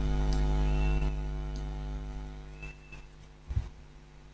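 Electrical mains hum picked up by the recording chain, a steady buzz that eases off after about two seconds. A few faint clicks and a low thump about three and a half seconds in.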